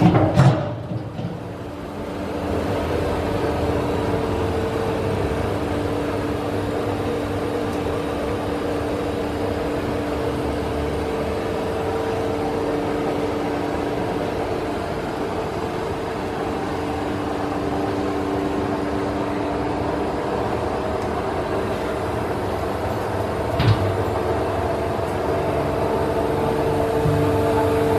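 Handtmann VF100B vacuum filler running: a steady machine hum with two constant tones. A sharp knock sounds right at the start and a smaller knock about 24 seconds in.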